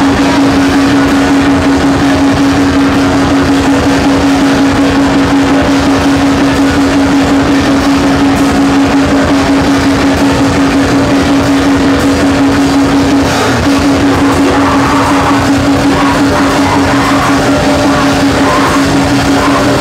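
Live grindcore band playing loud, distorted guitars, bass and drums: a single note held steady over fast, even drumming, briefly breaking about two thirds of the way through.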